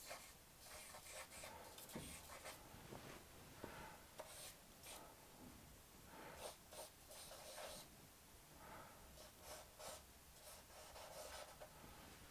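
Faint scratching of a charcoal stick drawn across paper in short, irregular strokes with brief pauses between them.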